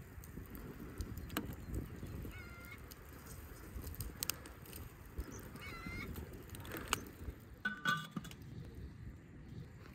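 Goose honking faintly, three short calls a few seconds apart, over a low wind rumble with a few light clicks.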